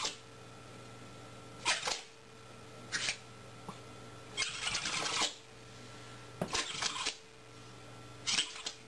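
A small animal sneezing over and over: about five short, sharp sneezes, one every second and a half or so.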